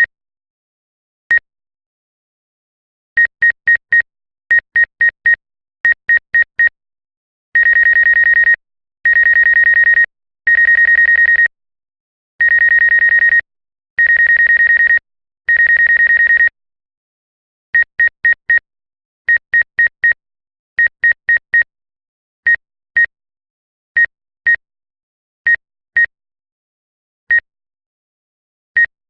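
DJI GO electronic beeps at one high pitch. First come single beeps, then quick runs of four, then five long tones of about a second each. Runs of four follow again, thinning out to pairs and then single beeps near the end.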